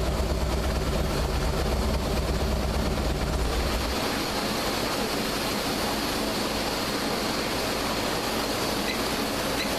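Harley-Davidson 103 cubic-inch V-twin running steadily on a dyno. Its low engine note drops away about four seconds in, leaving a steady rushing noise.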